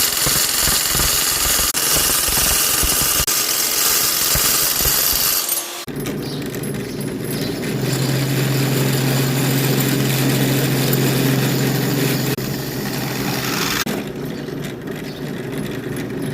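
Electric drill boring holes through steel plate: a loud, dense grinding with rapid low chatter. About six seconds in it cuts off abruptly, and a steadier motor hum with a held low tone runs on.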